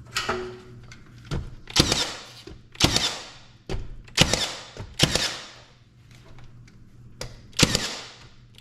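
Milwaukee M18 Fuel cordless brad nailer firing 1.5-inch brads into hemlock window casing: about six sharp shots at uneven intervals of roughly a second, each with a short fading tail, and a few lighter knocks between them.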